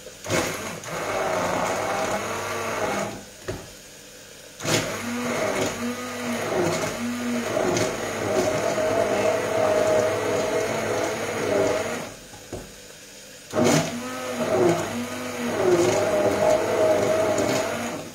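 Electric hand blender puréeing a prawn bisque in a pot. The motor pitch rises and falls as it works through the mixture. It stops twice, about three seconds in and about twelve seconds in, for a second or so each time, then starts again.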